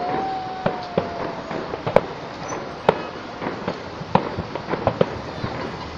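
Fireworks going off overhead: sharp bangs and crackles at irregular intervals, several a second at times, with a steady whistling tone that fades out about two seconds in.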